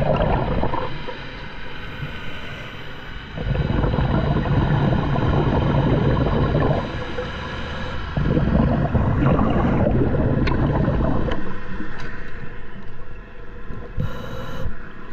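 A scuba diver breathing through a regulator, heard muffled underwater: loud rushes of exhaled bubbles every few seconds, with quieter inhale gaps between them.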